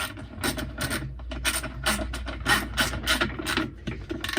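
Ratchet wrench with a 10mm socket clicking in quick repeated strokes, about four or five clicks a second, as it tightens the loose bolt at the bottom of an LG washer's tub.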